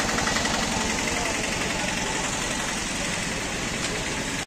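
An engine running steadily, with a dense, even rumble and a faint high whine that fades away in the first couple of seconds.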